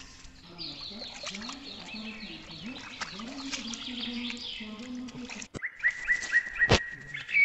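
Birds calling: rapid, repeated high falling chirps for most of the clip, then a quick run of short rising notes near the end, with a lower repeated call underneath. Two sharp clicks sound near the end.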